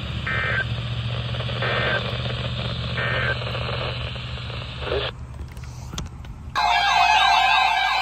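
NOAA Weather Radio broadcast through a Midland weather radio's speaker: static hiss with three short digital data bursts about a second apart, the SAME end-of-message code that closes a weather alert. The radio audio cuts off about five seconds in. Near the end a loud wailing, siren-like sound with music begins.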